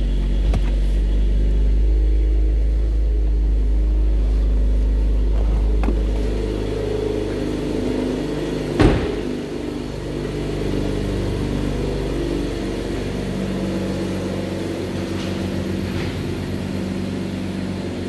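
2018 Chevrolet Camaro engine idling steadily, with a deep rumble that eases off after about six seconds. There is one sharp knock about nine seconds in.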